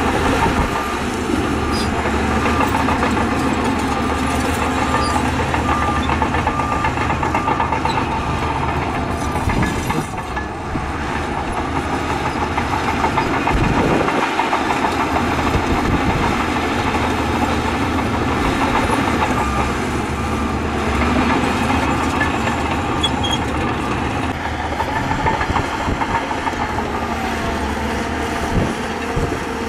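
Heavy diesel earthmoving machinery running steadily under load, with a low engine drone and a single dull thump about fourteen seconds in.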